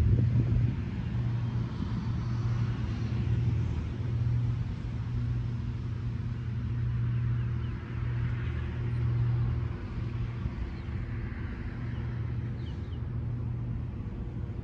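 Porsche 911 (992-generation) flat-six engine idling steadily, a low even hum.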